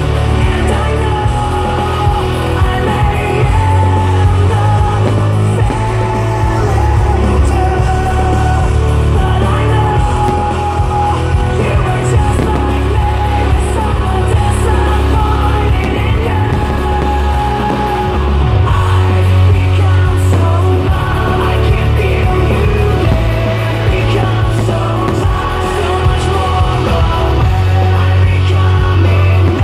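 A song with singing over a steady, heavy bass line, played loud and without a break.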